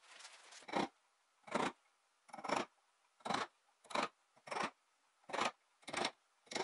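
A hand carving gouge cutting a decorative moulding in wood: nine short, crisp cuts at a steady pace, a little under one a second, after a faint scraping at the start.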